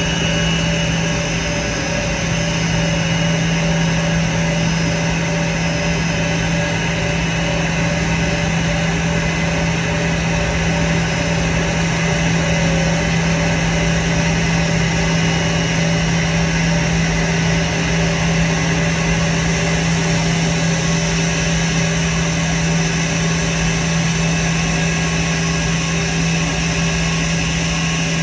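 The twin jet engines of an Airbus A320 running at taxi power as the airliner rolls in to park: a steady rush with a strong low hum and several higher held tones, with no change in pitch.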